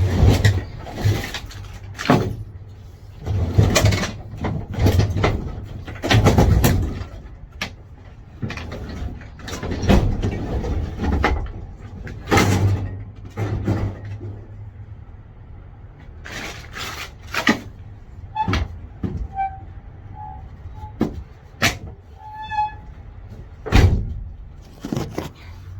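A run of heavy thuds, clunks and rattles from a truck and a walk-behind lawn mower being unloaded from it. A few short beeps come about two-thirds of the way through.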